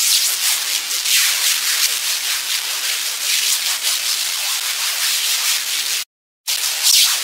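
Hissing, scratchy noise that swells and fades irregularly, cutting out abruptly for a moment about six seconds in.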